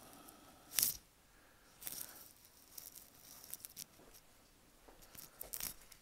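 Rustling and scraping of a handheld phone being moved, with one sharp scrape about a second in and lighter rustles and clicks after.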